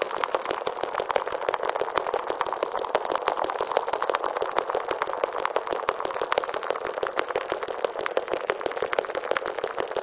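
Steady, dense crackling sound effect: a constant stream of quick, irregular pops and clicks, thin in the bass.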